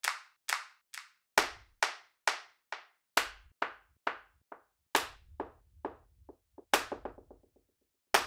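Sampled hand claps from an Ableton drum rack, layered from several real clap recordings, playing a steady beat of about two claps a second. Each clap is followed by delay echoes that fade away and lose their top end, and a low thump sits under every fourth clap.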